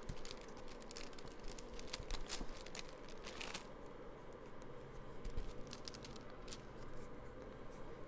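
Faint rustling and small irregular ticks of fingers pressing and working air-dry clay down into a silicone craft mould, busiest in the first three or four seconds.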